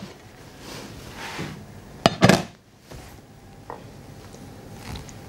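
Heavy cast-iron casserole lid lifted off and set down with one loud metallic clank a little over two seconds in, followed by a metal ladle knocking lightly in the pot while serving a thick stew.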